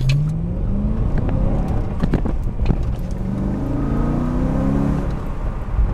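BMW E92 M3's S65 V8 with an M Performance exhaust accelerating hard, heard from inside the cabin. The engine note climbs quickly over the first second, turns rough and broken around two seconds in, then climbs again more gently.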